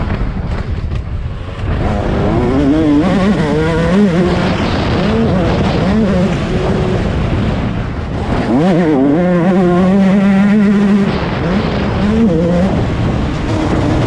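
2021 Yamaha YZ125's two-stroke single-cylinder engine at race pace, heard from on the bike: the revs repeatedly climb and drop as the throttle is worked through the turns, held high and steady for a couple of seconds about two-thirds of the way in.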